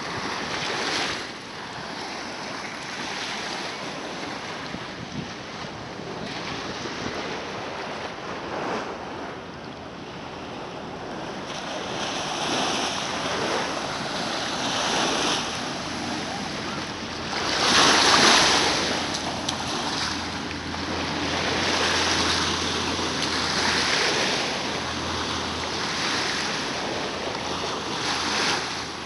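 Small waves breaking and washing up a sandy beach in shallow surf, swelling and ebbing in surges, with the loudest rush about 18 seconds in.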